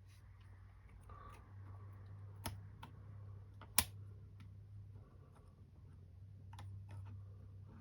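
Carbon-fibre quadcopter frame parts being handled and pressed together: scattered hard clicks and taps, two sharp ones about two and a half and four seconds in, the second the loudest, over a low steady hum.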